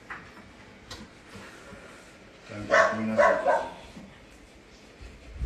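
A dog barking, a short run of several barks about three seconds in.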